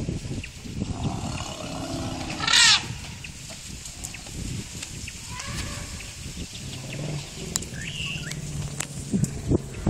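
African elephants calling in the excited commotion that follows a mating: one loud, short trumpet about two and a half seconds in, among lower rumbling calls from the herd.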